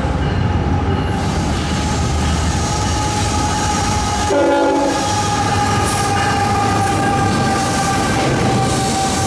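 CSX freight train passing, led by a GE Evolution-series diesel locomotive: a heavy low engine and rail rumble with steady high-pitched ringing tones over it, typical of wheel squeal, and a brief chord-like tone about four and a half seconds in.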